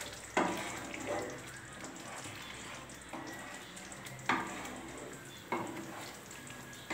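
Wooden spatula stirring thick curry gravy in a nonstick kadai, knocking against the pan four times, over a faint steady sizzle of the simmering gravy.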